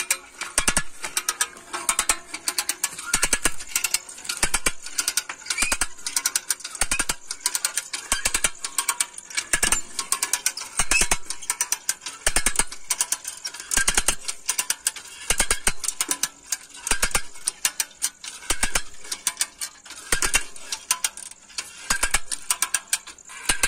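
Hand-cranked ratchet wire tensioner pulling fence wire tight. Its pawl clicks rapidly over the ratchet gear in repeated runs of clicks, one run with each stroke of the handle.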